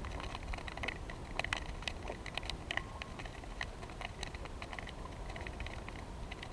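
Small waves lapping and splashing against a canoe hull at the waterline: many quick, irregular little splashes and ticks over a low steady rumble.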